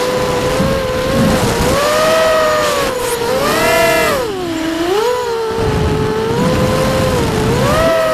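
FPV racing quadcopter's electric motors and propellers whining from on board, the pitch of the several motors rising and falling together as the throttle changes, with a low rumbling noise at times.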